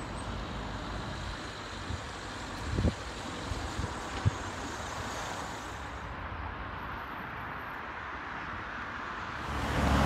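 Steady road traffic noise, a continuous hiss and rumble of passing vehicles, with a few faint knocks about three and four seconds in.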